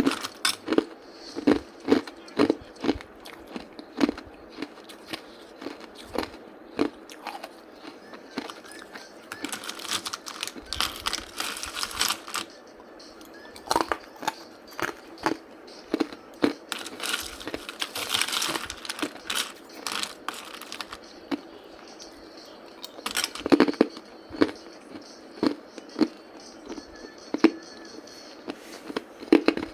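Hard ice being bitten and chewed close to the microphone: a long series of sharp, separate crunches, with two longer stretches of dense, gritty grinding as the ice is chewed fine, the first about ten seconds in and the second about seven seconds later.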